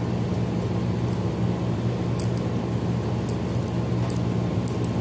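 Steady low hum throughout, with a few faint, light clicks scattered across it from a lockpick working in the lock of toy handcuffs.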